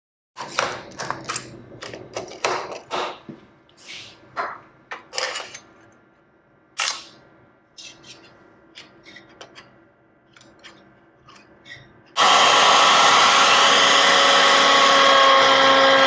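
Clicks and knocks of setting up a router table, then about twelve seconds in the router with a half-inch round-over bit comes on suddenly and runs loud and steady while it rounds over the edge of a zebrawood board.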